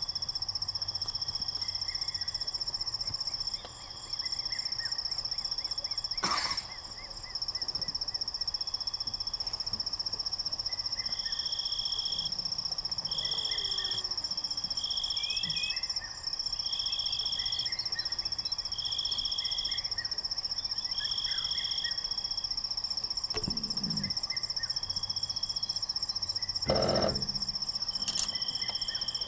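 Night insect chorus: crickets keeping up a steady, high-pitched trill, with another animal's short calls repeated about once a second for a stretch in the middle and again near the end, and a few faint chirps. Two sharp knocks cut through, one early and a louder one near the end.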